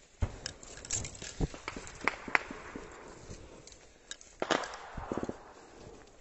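Footsteps crunching over dry leaves, twigs and dirt, with irregular sharp cracks and knocks throughout.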